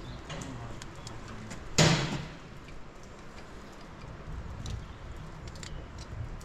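Faint clicks and handling noises as a wire is fitted to a fitting on a Ford 5000 tractor's engine block, with one brief loud noise about two seconds in.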